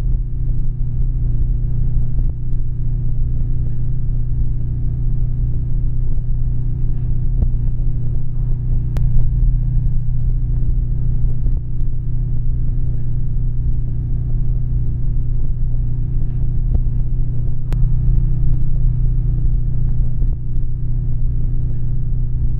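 Steady low rumbling drone, the even hum of a moving enclosed vehicle or lift, holding level without change.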